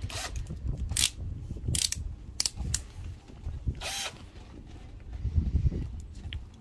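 Scattered sharp clicks and knocks, with a short rattling burst about four seconds in, from tools and the flexible plastic mould wall being handled while screwing the wall down with a cordless drill is set up. A low rumble runs underneath.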